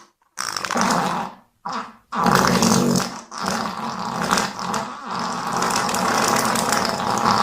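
Fart sound effect, long and rough: a couple of short blasts in the first two seconds, then one long sustained one with brief dips, running on into the next seconds.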